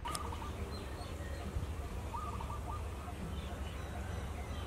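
A bird calling twice in short runs of quick notes over a steady low outdoor rumble.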